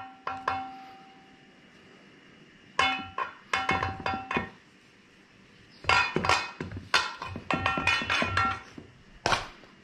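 A utensil knocking and scraping against a bowl in quick runs of taps, with some strikes leaving the bowl ringing briefly. This is ricotta being worked off blotting paper towels into the bowl.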